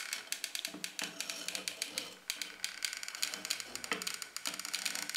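Hot glue gun's trigger and feed mechanism clicking rapidly and irregularly as glue is laid around a speaker's metal frame.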